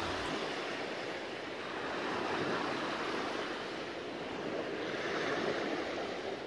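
Sea surf washing up onto a sandy beach: a steady rushing wash that swells and eases every few seconds as waves come in.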